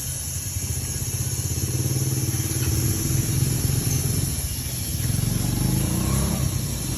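Handheld gun-style air compressor running steadily while pumping up a tire, its piston motor pulsing rapidly and evenly.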